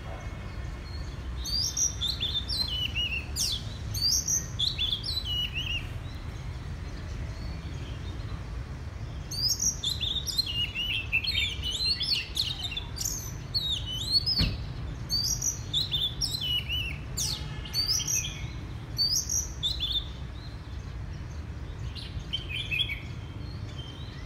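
Oriental magpie-robin singing in runs of quick, varied whistled phrases, many sliding down in pitch. There is a long pause near the start and a shorter one near the end, over a steady low rumble. A single sharp click comes about halfway.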